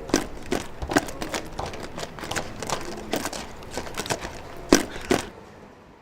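A quick, irregular run of knocks, taps and rustles of objects being handled, with two louder knocks near the end, cutting off suddenly about five seconds in.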